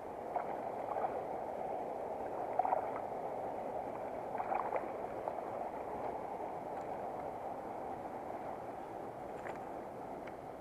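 Creek water flowing steadily, with a few brief splashes in the first half.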